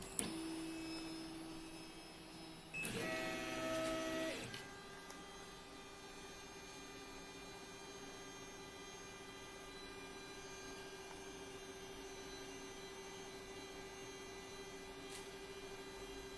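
Gmax 1.5 XT Plus 3D printer's stepper motors whining as it auto-homes its axes. A louder stretch of several pitches comes about three seconds in and lasts a second and a half, then a single steady whine with overtones carries on as the extruder is brought down close to the build plate.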